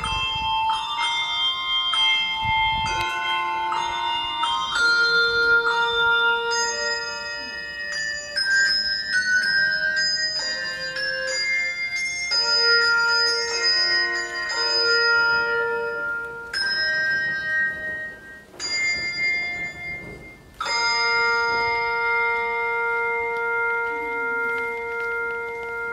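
Tower carillon of tuned bells playing a melody, each struck note ringing on under the next. About 21 seconds in a last chord is struck and rings on, slowly fading.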